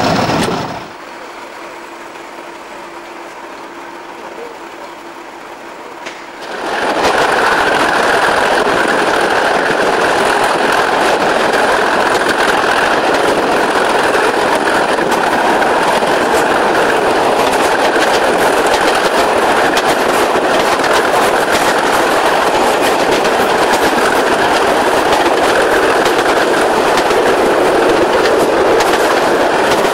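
A pair of Class 37 diesel locomotives, English Electric V12 engines, hauling a train. They are fainter for the first few seconds, then from about six seconds in loud and steady as heard from a carriage window just behind them, with the rush of moving air and the wheels on the rails.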